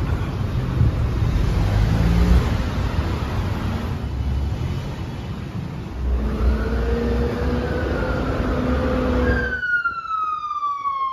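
City street traffic: cars passing with a steady rumble of engines and tyres. About nine and a half seconds in the street sound cuts off, and a single falling tone with overtones sounds on its own.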